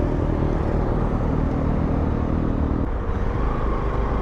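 Motorcycle on the move: a steady low engine rumble mixed with road and wind noise, the engine note dropping about three seconds in.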